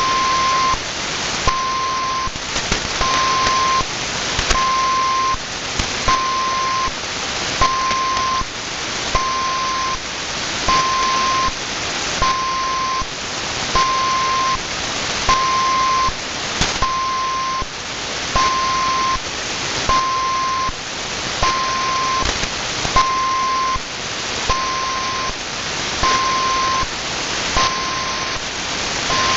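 Unidentified radio beacon-like signal received on a shortwave software-defined receiver at 4185 kHz: a steady beep near 1 kHz repeating about once every second and a half, over loud shortwave static hiss.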